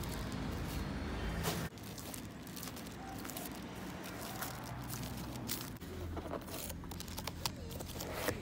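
Thin plastic carrier bag rustling and crinkling as it is carried and handled. In the second half come a few short taps and knocks as the cardboard pizza box is handled.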